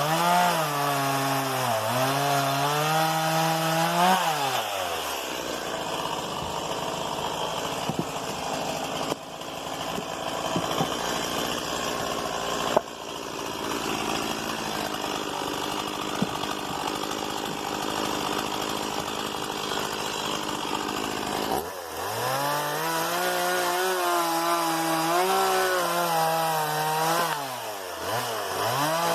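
Stihl MS 170 two-stroke chainsaw running, its pitch swelling and dipping with the throttle. For a long stretch in the middle the sound turns harsher and noisier as the chain cuts through wood, then the engine's pitch comes back clear near the end.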